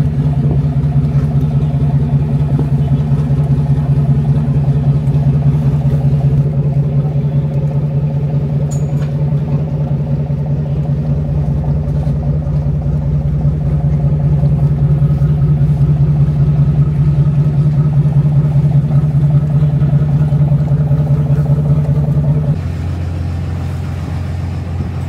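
A boat engine running steadily with a low, even hum. A little before the end it changes abruptly to a deeper hum with more hiss on top.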